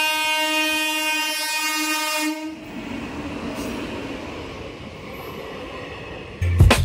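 A horn blowing one steady tone for about two and a half seconds, then cutting off into a quieter steady rushing noise.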